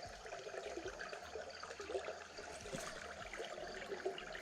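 A small creek babbling and trickling over rocks, faint and steady.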